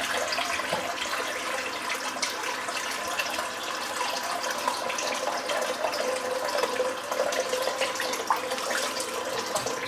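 Tap running steadily into a sink while shaving lather is rinsed off the face.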